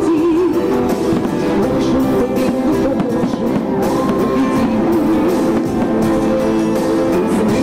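Music with guitar playing over the fireworks display, with sharp cracks of bursting fireworks now and then.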